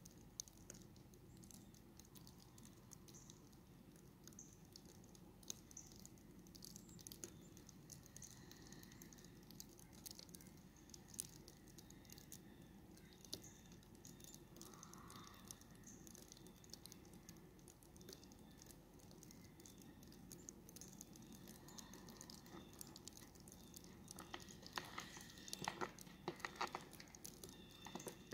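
Near silence: faint outdoor quiet with scattered soft ticks, and a short run of louder crackling clicks near the end.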